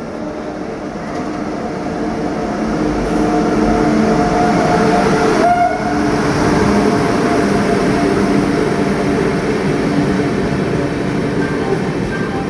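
Express passenger train arriving at a platform: the electric locomotive passes close by with a rising rumble and a steady hum, loudest about five seconds in, then the coaches roll past.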